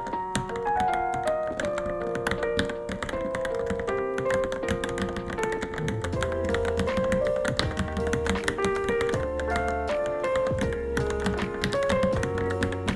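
Fast, uneven key clicks of typing on a Varmilo Minilo keyboard, heard over melodic background music whose low bass line comes in about halfway through.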